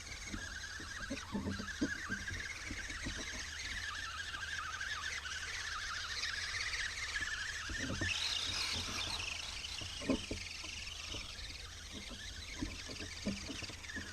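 A radio-controlled truck's electric motor whining, its pitch wavering up and down with the throttle, getting louder and higher about eight seconds in, with scattered short knocks underneath.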